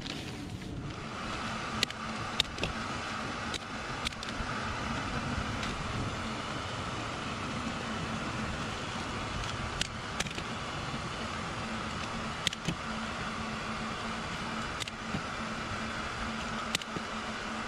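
A steady motor-and-fan hum that starts about a second in and runs on evenly, with scattered sharp clicks over it.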